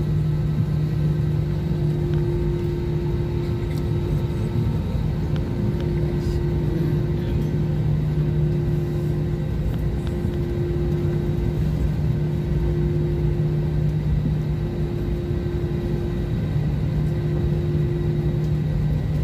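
Steady cabin drone of an airliner on the ground: a low rumble from the engines and air system, with a steady hum.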